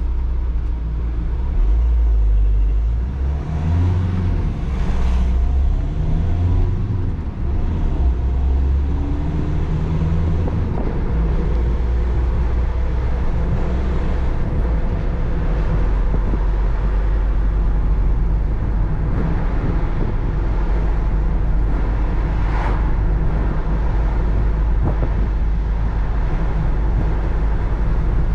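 Volkswagen T5 van's 2.0 TDI four-cylinder diesel engine and road noise while driving. The engine pitch climbs several times in the first ten seconds, then settles to a steady hum.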